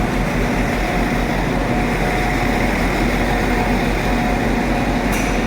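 Steady mechanical drone with a few held tones, with a short high hiss about five seconds in.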